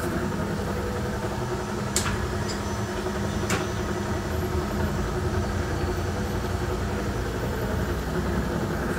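Workshop machinery running with a steady mechanical hum, with two sharp clicks about two and three and a half seconds in.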